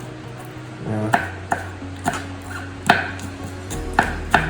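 Knife chopping vegetables on a cutting board: irregular sharp strikes, about seven of them, with steady background music underneath.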